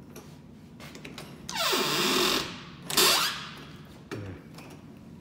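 Newly installed panelled interior door being worked: two loud scraping sweeps about a second apart, the second the louder, then a light knock.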